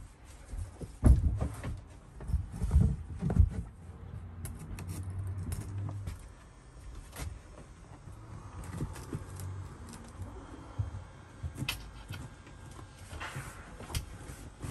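Upholstered seat cushions being set down and pushed into place on caravan bench seats: a series of soft, heavy thumps in the first few seconds, the loudest about a second in, then scattered lighter knocks and taps.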